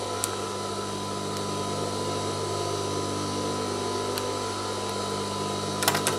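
Industrial sewing machine's motor humming steadily while it stands without stitching, with a few sharp clicks, several of them together near the end.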